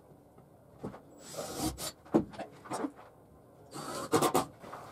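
Wooden boards shifted and rubbed on a wooden workbench, a few short scrapes and knocks, with the loudest cluster of clunks near the end as a cordless drill is set down on the table. No drill motor runs.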